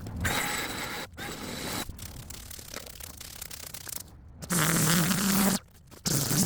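A quick series of cut-together sidewalk-clearing work sounds: rasping and scraping against the pavement, with a steady low motor hum in one short clip a little over four seconds in. Each clip stops abruptly.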